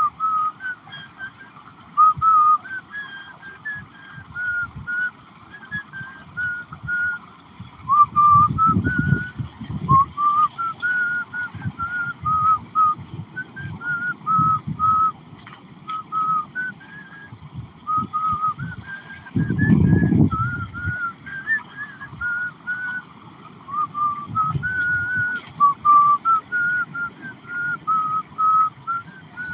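A man whistling a tune as a steady string of short notes stepping up and down. Low rumbles break in twice, about a third and two-thirds of the way through.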